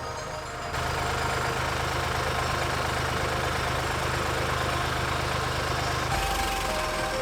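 A large engine idling steadily, its sound shifting abruptly about a second in and again near the end.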